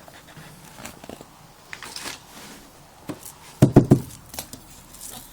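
Plastic vacuum-cleaner attachments and hose being handled, with scattered light clicks and a short cluster of sharp knocks about three and a half seconds in.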